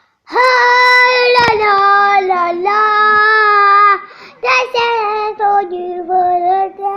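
A child's voice singing loudly in long held notes, then breaking into shorter sung phrases about four seconds in.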